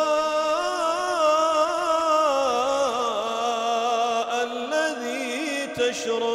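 A man's voice reciting the Quran in melodic tajweed, drawing out the words 'al-mā'a lladhī' in one long held and ornamented line. The pitch wavers, sinks about halfway through and climbs back, with a short break near the end.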